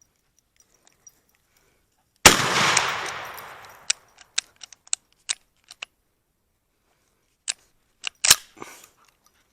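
A single 12-gauge shot from a GForce P3 14-inch firearm, about two seconds in, its echo dying away over about a second and a half. Afterwards come a string of sharp clicks and clacks, with a few more near the end.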